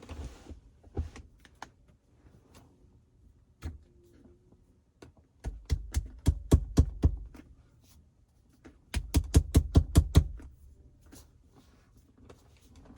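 A weighted shift knob being hit down by hand onto a BMW manual shift lever: two quick runs of sharp knocks, about six a second, as it is seated.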